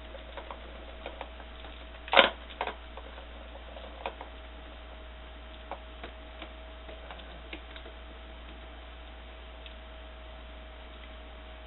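Scattered light plastic clicks and taps as kittens paw at a round plastic ball-track toy, with one louder short sound about two seconds in. A faint steady hum runs underneath.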